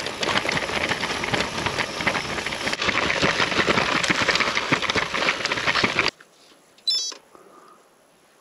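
Gravel bike rattling and clattering at speed over a rough dirt trail. About six seconds in the sound drops away abruptly, and a short high beep follows a second later.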